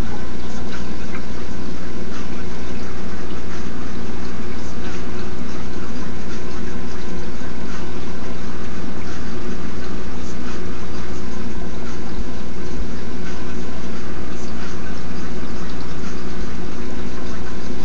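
Saltwater aquarium's water circulation: a steady, loud rush of moving water with a low pump hum underneath, unchanging throughout.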